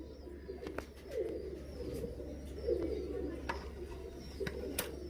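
Pigeons cooing: several low, warbling coos a second or so apart, with a few faint clicks among them.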